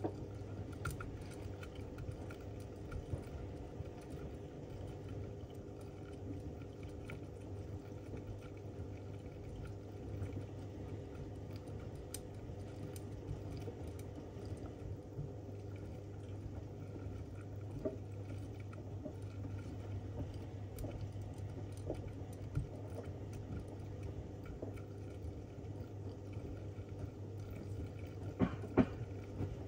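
Zanussi ZWF16581W front-loading washing machine in its main wash, the drum tumbling a wet load: a steady motor hum with water sloshing and scattered light clicks. A few sharp knocks come near the end.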